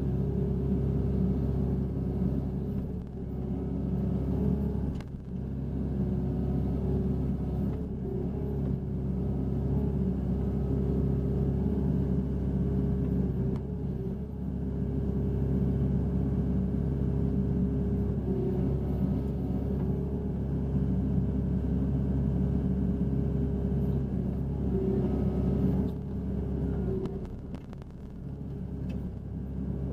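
Hitachi Zaxis 60USB mini excavator's diesel engine and hydraulics running steadily under digging load, heard from inside the cab: a steady drone with a higher steady tone over it, dipping briefly about five seconds in and again near the end.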